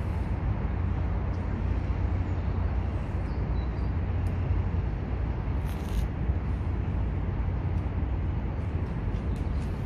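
Steady low rumble of background noise with no clear pitch, carrying a few faint clicks.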